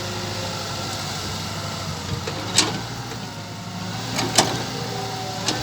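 Radio-controlled Hitachi 120 model excavator running, a steady mechanical hum, broken by three sharp clicks or knocks about two and a half, four and a half and five and a half seconds in.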